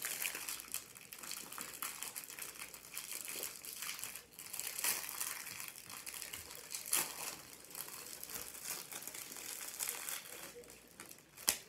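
Snack wrapper crinkling as it is handled and opened, with one sharp crackle near the end.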